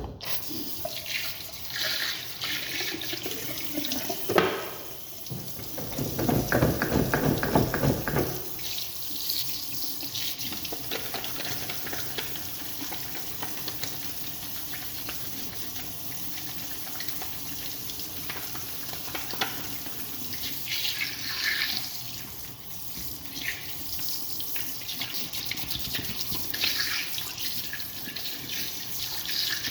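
Water running steadily, starting suddenly at the outset, with a louder, fuller rush from about six to eight seconds in.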